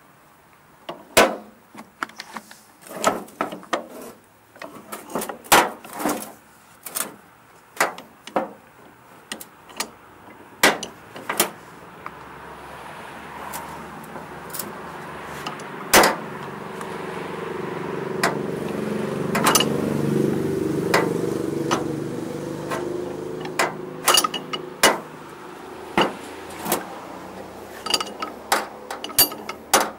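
Repeated sharp metal clinks and knocks of tools and parts being handled during mower repair work. Around the middle, a passing vehicle's engine hum swells up over several seconds and fades away again.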